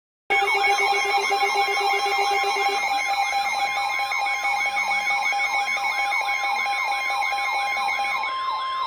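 Electronic emergency alert tone: a fast, repeating siren-like warble, about two sweeps a second, layered over steady beeping tones. It starts abruptly just after a moment of silence and cuts off near the end.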